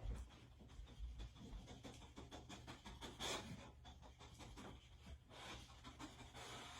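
A dog panting and sniffing quietly, with faint scattered clicks, as it searches for a hidden scent. The breathy bursts come a few seconds apart.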